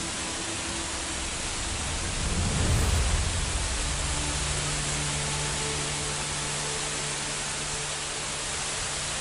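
Heavy rain falling on floodwater, a steady even hiss, with a brief low rumble about two and a half seconds in.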